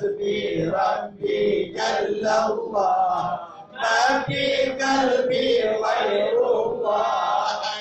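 Male voices chanting Arabic devotional verses in long, held melodic phrases with short pauses between them.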